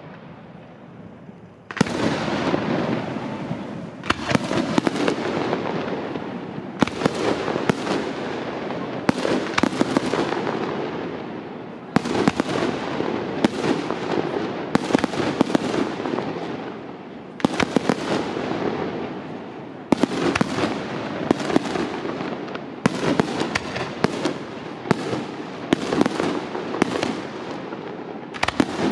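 Aerial fireworks display: after a short lull, shells go off about two seconds in and then keep bursting roughly once a second, each bang trailing off into the next.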